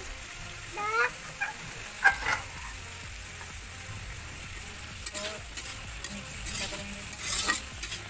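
A metal ladle stirs and scrapes cauliflower and carrots frying in an iron karahi, with light sizzling and a sharp clink against the pan about two seconds in. A short rising squeak sounds about a second in.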